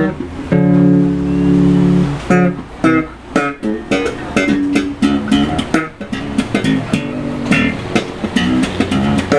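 Five-string electric bass played through an amplifier: a held low note, then a quick run of short, sharply attacked notes with clicky string attacks.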